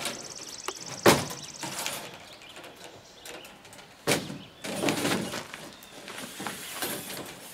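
A steel CB whip antenna being drawn out of a long shipping tube: scraping and sliding as it comes out, with a sharp knock about a second in and another about four seconds in.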